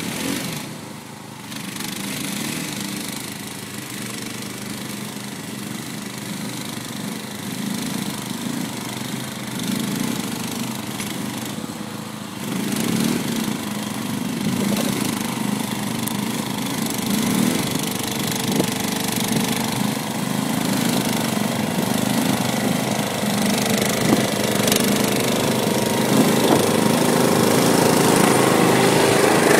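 Yamaha Kodiak 400 ATV's single-cylinder four-stroke engine running steadily, growing gradually louder as the ATV drives up close.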